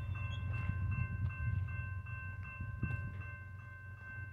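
A railroad grade-crossing warning bell rings steadily, warning of an approaching train, over a low rumble.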